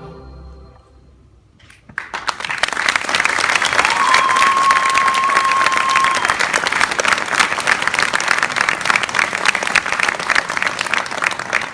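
Audience applause breaking out suddenly about two seconds in as the music ends, dense and loud, with one long whistle from the crowd that slides up and holds.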